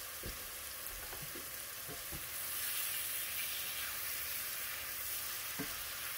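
Diced chicken breast sizzling in butter in a skillet, the sizzle growing a little louder about two seconds in as a silicone spatula stirs the pieces. A few light knocks of the spatula against the pan.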